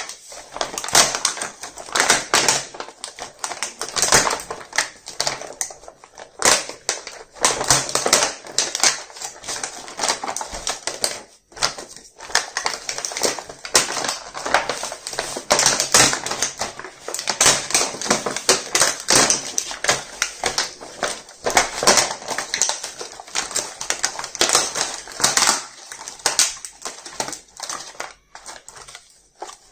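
Clear plastic blister packaging crinkling and crackling as it is peeled off a plastic toy case and pulled away, a dense, irregular run of crisp crackles.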